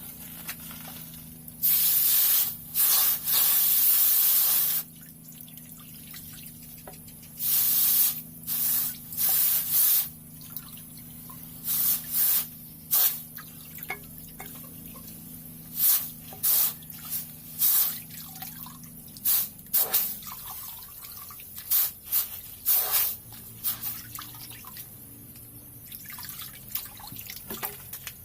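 Repeated hissing sprays: one long spray of about three seconds, then many short ones.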